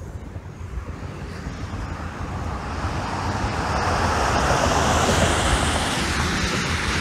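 A car going by on the road, its tyre and engine noise swelling to a peak about four to five seconds in and then fading, over a low rumble of wind on the phone's microphone.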